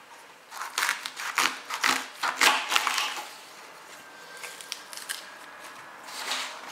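Kitchen knife slicing through the tough green leaves of a leek: a quick run of crisp cutting and crunching strokes lasting about two and a half seconds, then quieter rustling as the cut leaves are handled.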